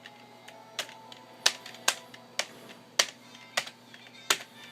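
Computer keyboard keys pressed one at a time, slowly and unevenly, with sharp single clicks roughly every half second.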